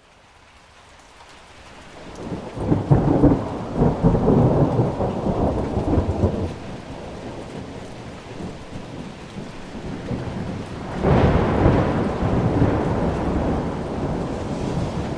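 Thunderstorm: steady rain fading in, with two long rolls of thunder, the first about two seconds in and the second about eleven seconds in, trailing off toward the end.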